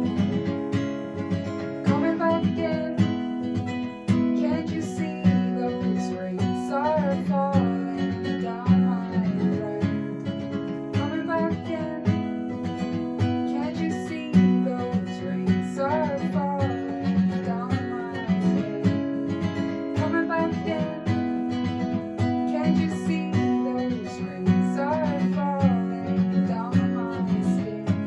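Acoustic guitar strumming chords in a steady rhythm in an instrumental passage of a song, with a wavering melody line over it.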